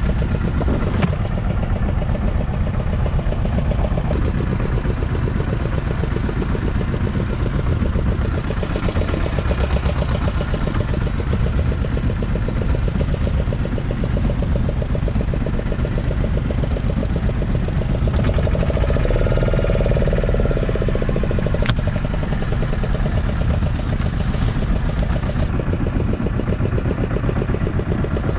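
An engine running steadily at idle, with a couple of sharp clicks over it.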